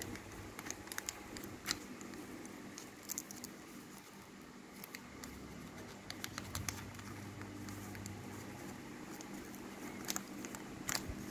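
Faint, scattered crinkles and ticks of a plastic trading-card packet being handled as a card is worked out of it.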